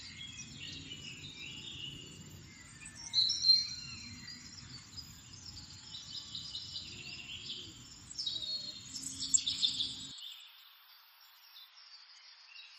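Wild birds chirping and trilling over a low steady background noise, with the loudest bursts of calls about three seconds in and again around nine seconds. Near ten seconds the low background cuts off and the calls fade.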